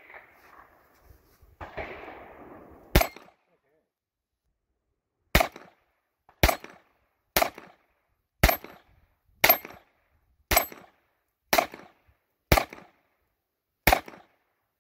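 Sig Sauer P226 .22 LR pistol fired ten times: a single shot about three seconds in, then nine more at a steady pace of about one a second.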